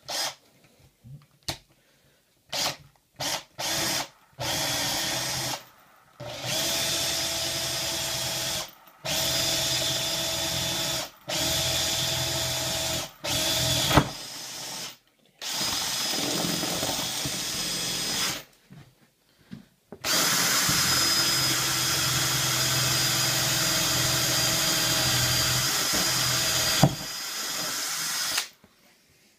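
Cordless drill boring a hole down through a wooden desktop. It starts with a few short trigger bursts, then runs for several seconds at a time with a steady motor whine and brief pauses, the longest run of about seven seconds in the second half.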